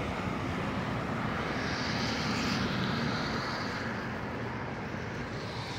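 Street traffic on wet pavement: a steady hiss of tyres, swelling as a car passes about two seconds in, then easing off.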